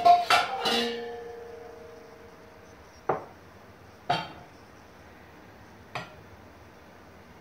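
A metal pouring cup clanking against a stainless steel pot: three quick knocks, the pot ringing on and fading for a second or so. Then single clinks of metal on the pot or the glass jar about three, four and six seconds in.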